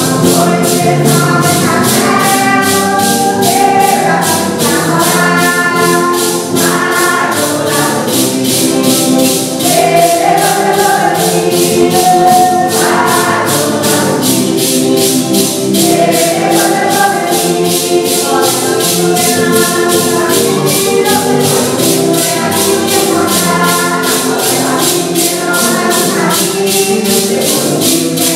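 A group singing a Santo Daime hymn in unison, with maracás shaken on a steady beat of about three strokes a second.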